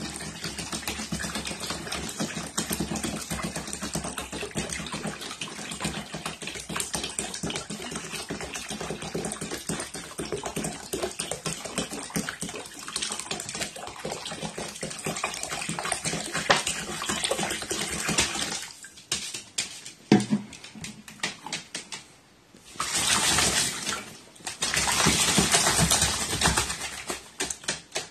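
A pet crow bathing, splashing water with quick flicks of its wings and body. The splashing eases off for a few seconds past the middle, then comes back in two louder bouts near the end.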